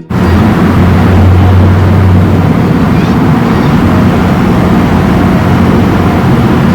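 Ford Expedition engine idling rough and uneven, the shake of a misfire on cylinder 6 (code P0306).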